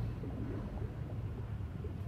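A low, steady rumble from the documentary's soundtrack under footage of the sunken battleship wreck, with no speech.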